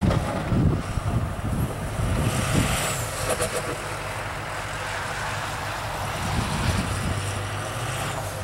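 Ford F-350 pickup's engine running under load as the truck pushes snow with its front plow: a low rumble, louder for the first three seconds, then steady.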